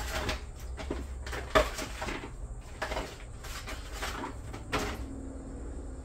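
Crinkling and knocks of a disposable aluminium foil pan as gloved hands rub seasoning into chicken pieces in it, with a sharper knock about a second and a half in.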